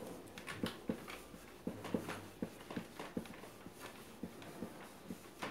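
Cloth scrubbing and rubbing on the glass of a CRT picture tube, an irregular run of short strokes and light taps, about three a second.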